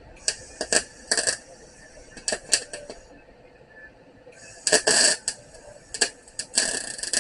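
Welder arc crackling and sputtering in two stretches of short, irregular strikes over a steady high hiss, as a nut is welded onto a broken thermostat-housing bolt stub.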